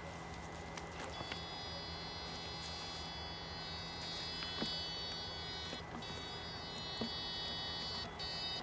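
Electrofishing shocker's inverter giving a steady high-pitched whine as current is sent through bamboo electrode poles into the water to stun fish. It switches on about a second in, breaks briefly near six seconds and cuts in and out near the end, over a low hum.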